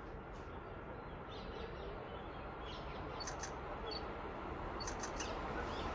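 Birds chirping in short high calls over a steady background noise that grows slowly louder.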